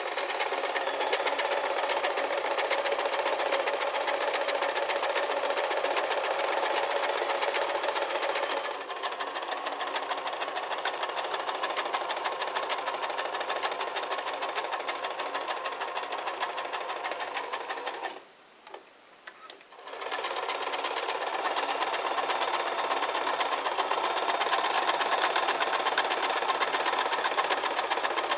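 Kenmore 12-stitch sewing machine running steadily, sewing decorative stitches through fabric with a fast, even needle clatter over its motor hum. The hum shifts in pitch about a third of the way through. The machine stops for under two seconds about two-thirds of the way through, then starts sewing again.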